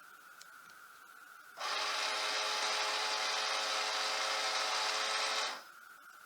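Clack water softener control valve's drive motor running for about four seconds, a steady whirr that starts and stops abruptly. The valve is stepping into a forced regeneration, moving to its brine-tank pre-fill position.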